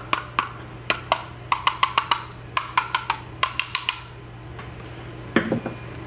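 Plastic housing of an Invacare MK6i wheelchair joystick being tapped over and over with a tool: a string of sharp, hard knocks, some in quick runs, that stops about four seconds in, with one more knock near the end. It is a tap test for a loose connection behind a display stuck on a white screen.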